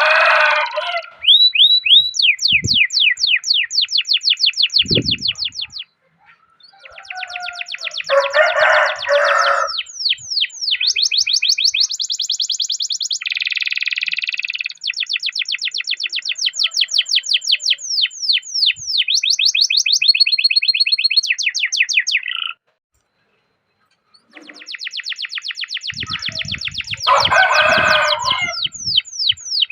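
Domestic canary singing long rolling trills of rapid repeated high notes, phrase after phrase, broken by two brief silences. About eight seconds in and again near the end, lower, rougher notes sound under the trill.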